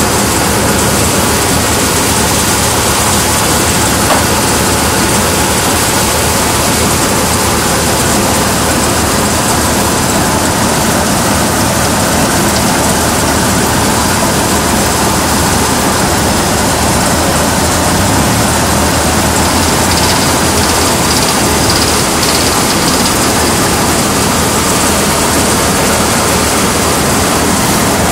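Tractor engine running steadily at close range, a loud, constant drone with no change in speed.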